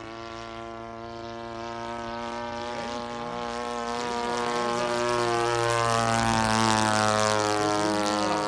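RC model airplane (Hangar 9 Corsair) running its engine and propeller in flight with a steady drone, growing louder over the second half as it comes closer.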